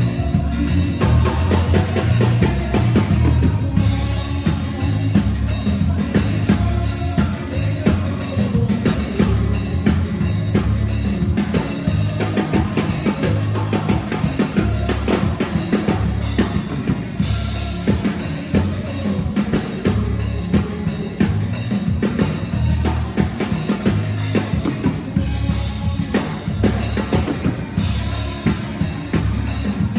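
Music with a drum kit playing a steady beat, kick, snare and rimshots, over a heavy bass line.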